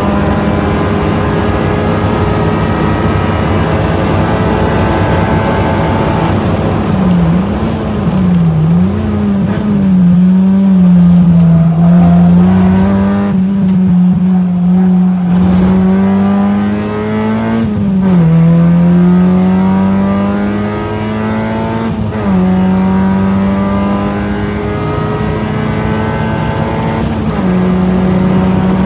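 Honda Civic hatchback engine, heard from inside the cabin on track, running hard at high revs on a straight. About seven seconds in the revs dip and jump as it downshifts under hard braking. From about eighteen seconds it pulls back up through the gears, with rising revs cut by upshifts twice near the end.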